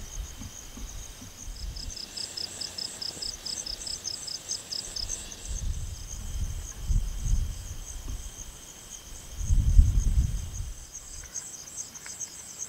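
Night insects chirping in fast, evenly pulsed high trills, several overlapping. Low rumbles on the microphone come twice, around seven seconds in and louder around ten seconds.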